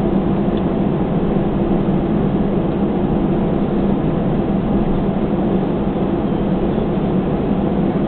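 Steady cabin noise inside an Airbus A320 taxiing after landing, with the engines at idle: an even rushing noise with a steady low hum under it.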